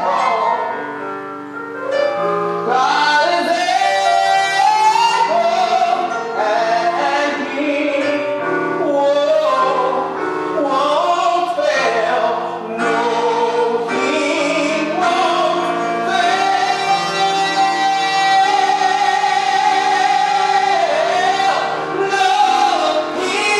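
A man singing a slow, sustained song on stage over instrumental accompaniment, holding long notes, with a long held note from about 16 to 21 seconds in.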